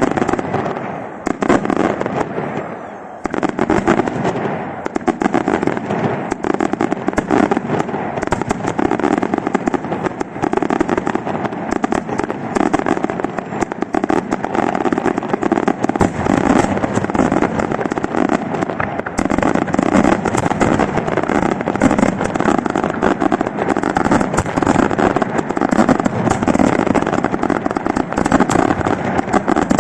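Daytime aerial fireworks: a dense, continuous barrage of rapid bangs and crackling reports. There is a brief dip about two seconds in, then it picks up again at full intensity.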